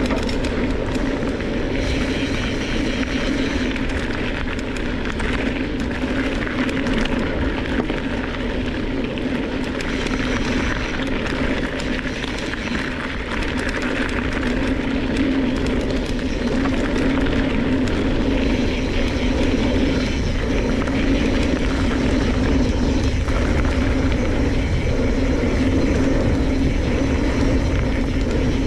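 Mountain bike riding down a hard-packed dirt and gravel trail: steady rolling noise of the knobby tyres and rattling of the bike, a constant drone with no breaks.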